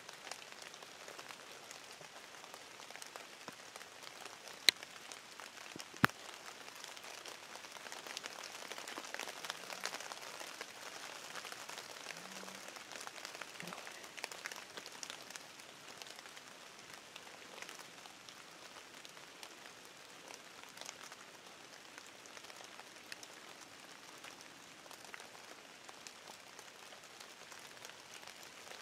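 Faint, steady pattering hiss of outdoor ambience, with two sharp clicks about five and six seconds in.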